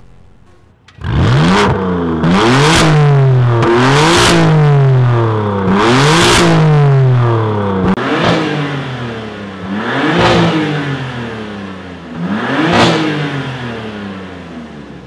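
BMW F82 M4's S55 twin-turbo inline-six free-revving in neutral through a Fi valvetronic catback exhaust and catless downpipe, with the exhaust valve open. After about a second it gives about four hard revs in quick succession, then three lighter blips with the revs falling away between them.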